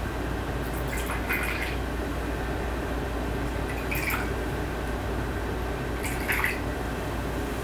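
Water poured from a small metal kettle into small porcelain teacups and a lidded teapot, three brief pours, each a short trickle into the porcelain.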